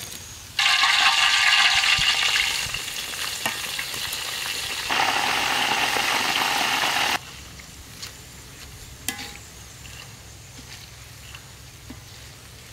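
Grasshoppers deep-frying in a wok of hot oil, sizzling loudly from about half a second in, changing in tone around five seconds and cutting off abruptly about seven seconds in. After that the sizzle is faint, with a few light clicks.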